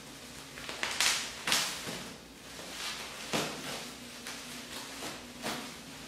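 Plastic bubble wrap crinkling and rustling as it is cut with scissors and pulled loose by hand, with several sharper crackles, the loudest about a second and a half in.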